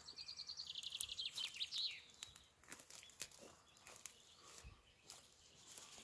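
A songbird singing one fast trill of repeated high notes that drop lower and end in a quick flourish about two seconds in; after it only faint scattered clicks and rustles.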